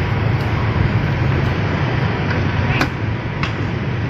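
Steady street background noise with a low hum, with a few light clicks and knocks, the sharpest a little under three seconds in; the level drops slightly just after it.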